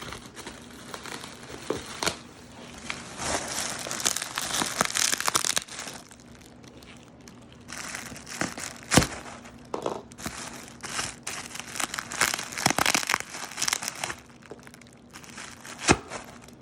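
Bubble wrap and packing tape being cut with a pocket knife and pulled off a wrapped bass neck: irregular crinkling and tearing, with a few sharp clicks, the loudest about nine seconds in.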